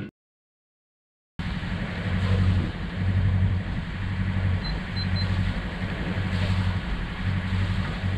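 Sailboat's inboard engine running steadily as the boat motors along, a low drone that swells about once a second, starting about a second and a half in.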